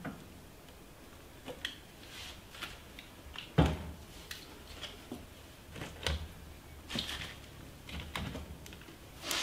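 Turf and kindling being laid by hand on the cast-iron grate of a stove's firebox: scattered light clicks and knocks, with a heavier thump about three and a half seconds in.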